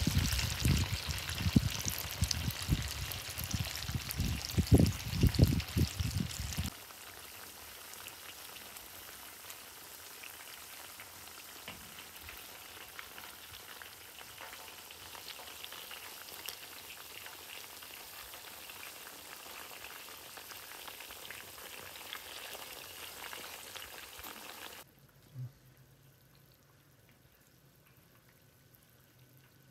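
Salmon fillets frying in hot oil in a large pan: a loud crackling sizzle with pops for the first six or seven seconds, then a quieter steady sizzle. About five seconds before the end it drops to faint sound.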